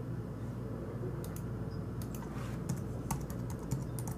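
Light, scattered clicks of computer keys being pressed, about a dozen spread through the last three seconds, over a steady low hum.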